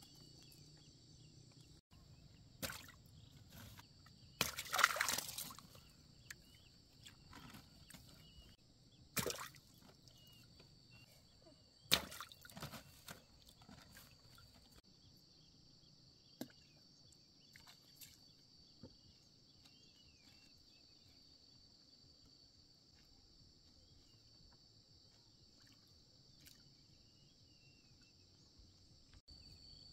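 A steady high-pitched insect drone, with scattered knocks and splashes of water in a bamboo boat as fish are picked from a net. The loudest is a splashing rush about five seconds in.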